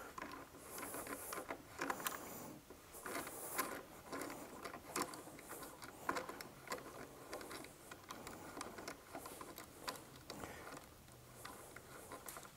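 Faint, irregular metallic clicks and scrapes of a wrench tightening the locking nuts on a floor edger sander's caster brackets, locking in its height adjustment.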